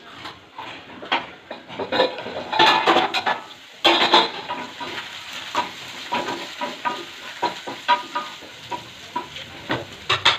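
Carrots and beans frying in a pan, stirred with a spoon that scrapes and knocks against the pan, with a louder clatter about four seconds in.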